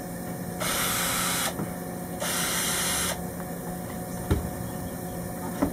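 Cordless drill running in two short bursts of about a second each, backing out the screws of a battery switch panel, followed by two light clicks.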